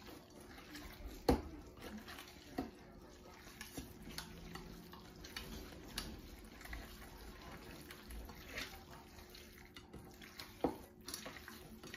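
Hands squishing and kneading raw ground-beef meatball mixture in a metal bowl: a faint, wet squelching with a few sharp knocks, the loudest about a second in and another near the end.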